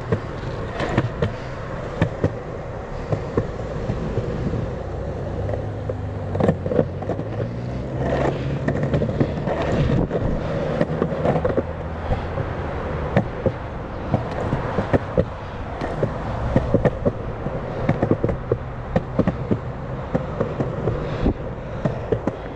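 Sector 9 skateboard wheels rolling on a concrete sidewalk: a steady rolling rumble broken by frequent sharp clacks as the wheels cross the joints in the pavement.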